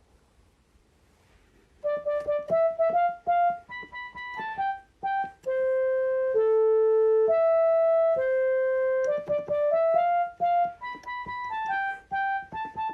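A simple tune played one note at a time on a keyboard, starting about two seconds in after near silence, with a few long held notes in the middle.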